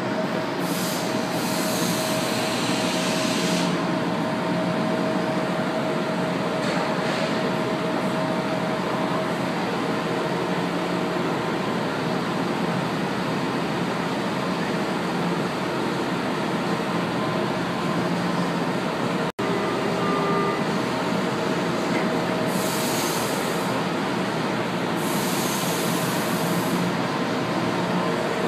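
São Paulo Metro Line 1 train standing at an underground platform with its doors open: a steady hum from the train, with a few bursts of hiss, about a second in and twice near the end.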